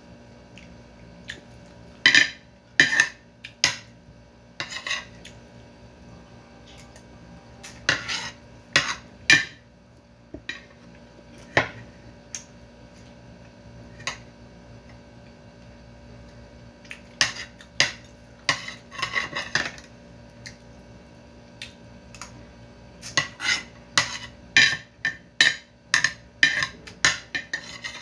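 A metal spoon and fork clinking and scraping against a plate of rice in irregular clusters of sharp clicks, with short scrapes in between, during a meal.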